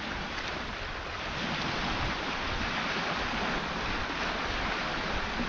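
Steady outdoor wash of wind and river water, an even rushing noise with no distinct events.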